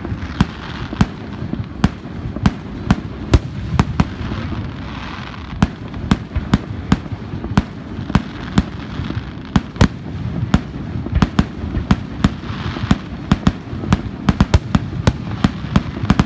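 Aerial fireworks going off: an irregular run of sharp bangs and pops, several a second, over a steady low rumble.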